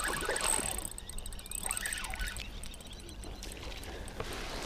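Fishing reel being cranked to bring in a hooked small largemouth bass, heard as short runs of fine, rapid ticking.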